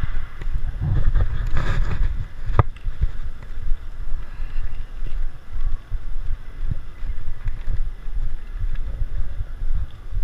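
Uneven low rumble and buffeting on the microphone of a camera moving along close to a tiled floor, with one sharp click about two and a half seconds in.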